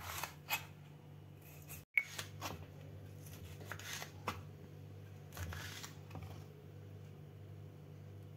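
Kitchen knife cutting citron (narthangai) into small pieces on a wooden cutting board: a scattering of soft cuts and taps of the blade on the board, with a faint steady low hum underneath.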